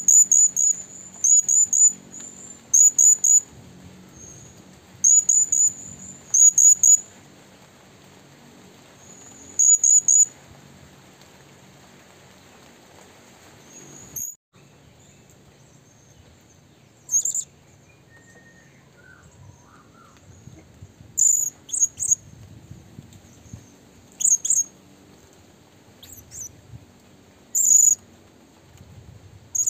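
A bird's short, very high-pitched chirps, singly and in quick pairs or triplets, repeating every second or two.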